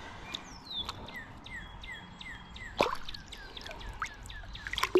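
A small songbird calling in a series of quick downslurred chirps, over a faint outdoor background of creek water. A brief sharp knock or splash cuts in about three seconds in.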